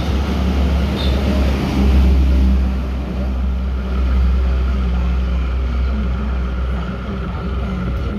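Industrial button-sewing machine's motor running idle, a steady low hum and rumble with a few faint steady tones above it.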